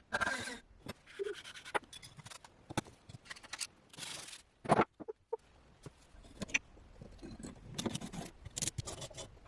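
Irregular small clicks, taps and short scrapes of metal parts and hand tools being worked on an air gun, with one sharper, louder knock a little under five seconds in.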